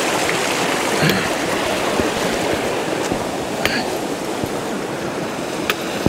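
Steady rushing of flowing water, with a few light taps.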